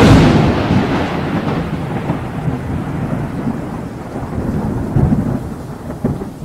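Thunder: a sudden loud thunderclap that rolls on as a long, fading rumble, swelling again about five seconds in.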